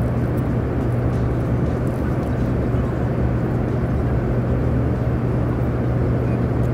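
Airliner cabin noise in flight: a constant rush of air over a steady low hum.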